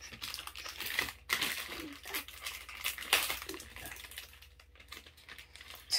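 Plastic snack-bread wrappers crinkling as they are handled, in irregular crackly bursts.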